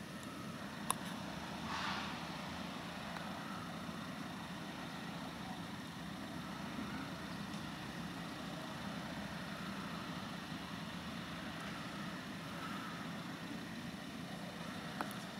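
Car engine idling with a steady low hum, with a single sharp click about a second in.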